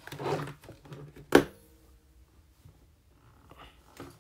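Handling noise close to the microphone: a brief rustle, then a single sharp knock with a short ringing after it. Faint small taps follow.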